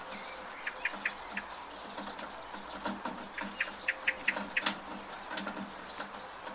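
Steady rain with water dripping from a gutter, and a bird giving quick runs of short repeated chirps, about a second in and again around the middle.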